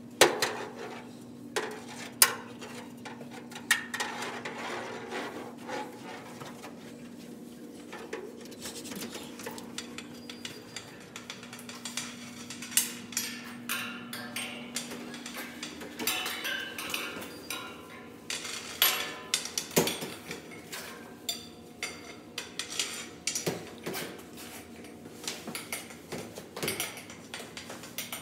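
A long cane tapping and scraping on the floor in irregular light clicks as a blindfolded walker feels her way, with a few louder knocks. A steady low hum sounds under the taps for about the first half, then fades out.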